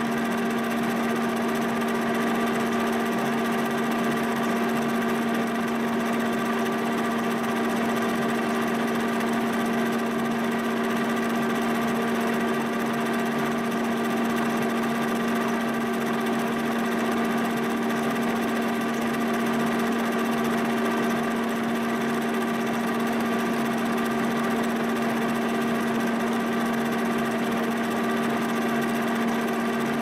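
Giddings horizontal boring mill running steadily with a constant hum, its Woodruff keyseat cutter milling a keyway into an 8620 steel camshaft core.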